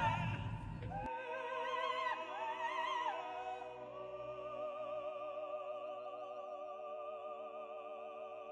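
Music with an operatic-style voice singing with vibrato, moving through a few notes and then settling into a long held chord about four seconds in.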